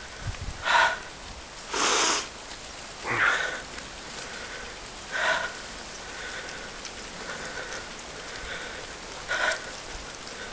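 A cyclist breathing hard while pedalling along a rutted dirt track: about five short, loud breaths or sniffs scattered through the stretch.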